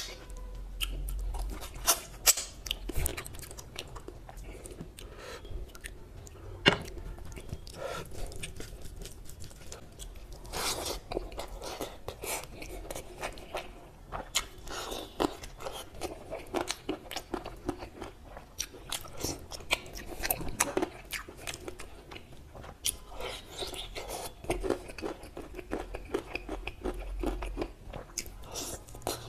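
A person eating mutton curry and rice by hand close to the microphone: chewing and biting, with many short sharp crunches and smacks throughout.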